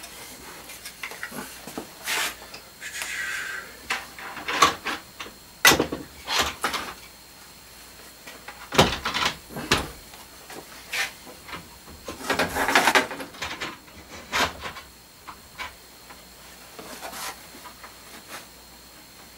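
A metal antique-electronics chassis being handled and fitted into a wooden holding fixture: irregular knocks and clunks against wood, with a couple of scraping rubs. It is quieter near the end.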